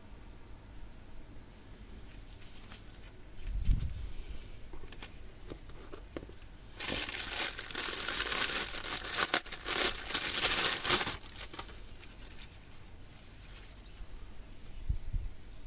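Clear plastic parts bag crinkling for about four seconds as gloved hands unwrap a new part, starting about seven seconds in, with small handling clicks around it. A dull low knock comes about four seconds in.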